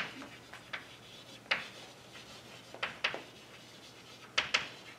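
Chalk writing on a blackboard: sharp taps of the chalk striking the board, some single and some in quick groups of two or three, with faint scratching between them.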